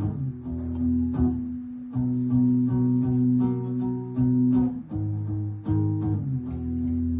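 Live acoustic guitar strumming chords in an instrumental passage of a song, with steady strokes and held low notes.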